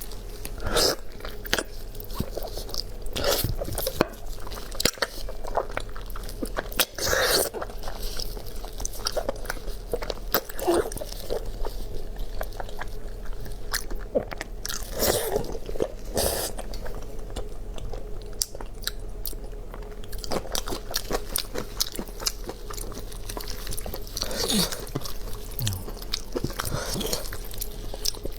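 Close-miked eating: a person biting into and chewing crunchy food, with repeated sharp crunches and wet chewing over a steady low hum.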